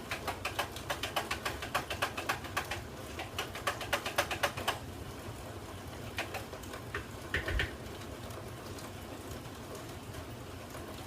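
A spoon stirring in a container of tea, clinking rapidly against its sides at about six clinks a second. The clinks stop about five seconds in, followed by a few single knocks.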